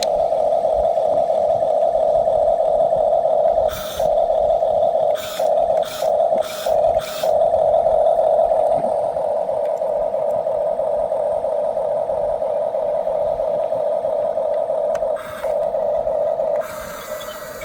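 Small electric drive motors and gearboxes of a 1/16 scale RC bulldozer whining steadily, with several brief cut-outs a few seconds in and one more later, then the sound changes near the end.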